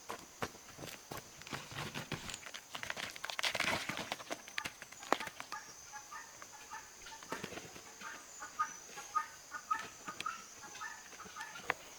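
Chickens clucking in quick runs of short notes through the second half, with scattered clicks and a rustle of handling in the first half, over a steady high insect drone.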